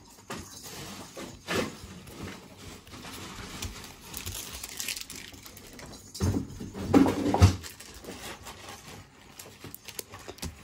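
Pokémon trading cards being handled and set down on a table mat, with light rustling and a few taps. A foil booster pack wrapper crinkles. A louder bout of handling knocks comes about six to seven and a half seconds in.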